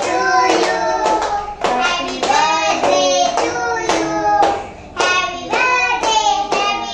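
A group of voices, children's among them, singing a birthday song together to steady hand clapping.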